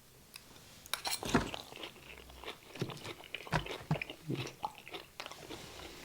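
Close crunching and chewing of crispy battered popcorn prawns, irregular crunches starting about a second in.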